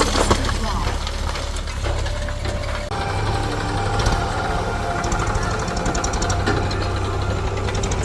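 Diesel engine of heavy machinery running steadily with a low, even rumble.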